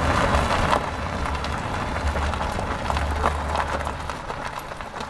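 Small wooden toy cart being pushed over rough concrete, a scraping rustle with irregular small clicks and a low rumble, slowly getting quieter toward the end.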